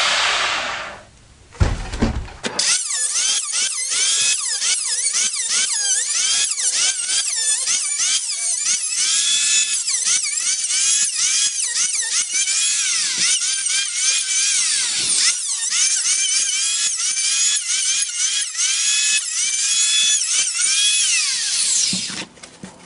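Electric hand planer cutting an ash door frame in a rapid run of short passes, its whine rising and falling with each stroke. A sharp knock comes about a second and a half in, and the planing stops just before the end.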